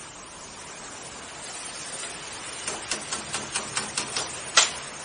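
A quick run of sharp clicks, about five a second for a second and a half, then one louder click, over a steady hiss: tools at work on a metal frame.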